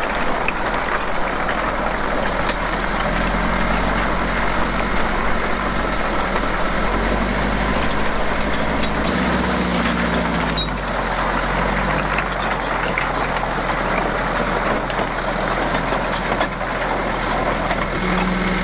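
Diesel engine of heavy farm machinery running steadily under load, its pitch rising and falling slightly as the revs change.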